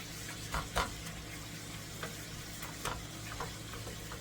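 Ground meat and cabbage frying in a skillet with a steady sizzle, while a utensil stirs and scrapes the pan, knocking against it about eight times; the loudest knock comes about a second in.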